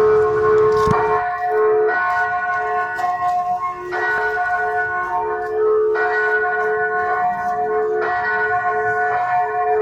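Church bells ringing, struck about once a second, each stroke ringing on under the next so the tones overlap.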